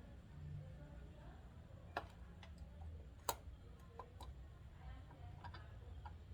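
Scattered light clicks and taps from tools and parts being handled while soldering a wire onto a small circuit board, about half a dozen in all, the loudest a little over three seconds in. A faint low hum lies underneath.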